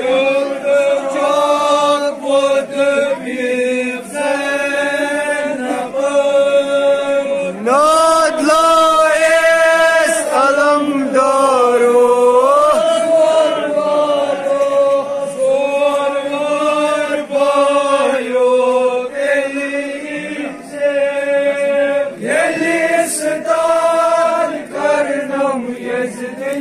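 Men chanting a Muharram noha, a lament for Karbala, in long held lines that glide up and down between short breaths.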